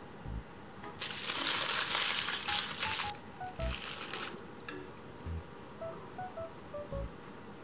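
Aluminium foil crinkling as it is folded around a hamburg steak and pressed into a lunchbox, in two spells of about two seconds and under a second, with a few light knocks, over soft background music.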